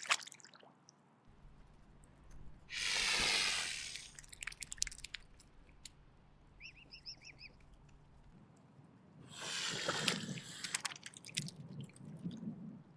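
Mute swan hissing in defence, two long breathy hisses several seconds apart, with light clicking sounds between them.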